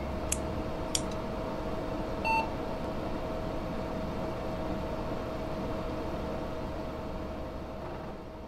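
Logo-intro sound effects: a steady electronic hum holding one constant tone, with two sharp clicks in the first second and a short beep about two seconds in.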